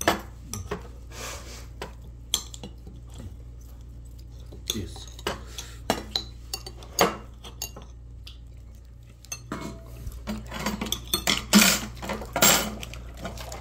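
Eating utensils clinking and tapping against bowls and plates during a meal, in scattered clicks that come thicker and louder near the end.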